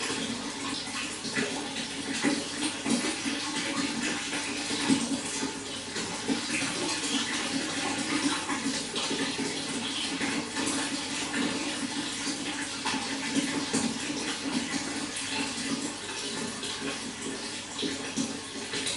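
Running water flowing and splashing steadily, a continuous rush with many small irregular splashes.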